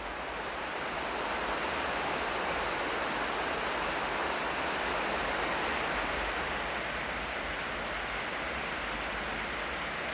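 River water rushing over a stony bed and a low weir: a steady wash of noise that eases slightly about two-thirds of the way in.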